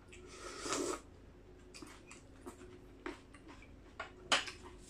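Mouth sounds of a person eating from a spoon and chewing. A short burst of noise comes about half a second in, followed by scattered soft clicks and smacks; the sharpest is near the end.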